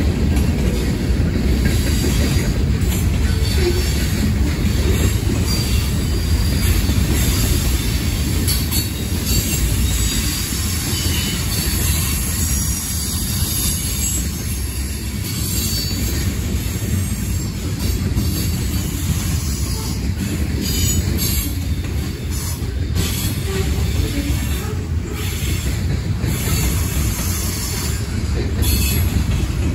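Freight cars of a Norfolk Southern train rolling steadily past: boxcars, covered hoppers, tank cars and autoracks, with a continuous low rumble of steel wheels on rail. A high hiss and squeal from the wheels comes and goes over the rumble.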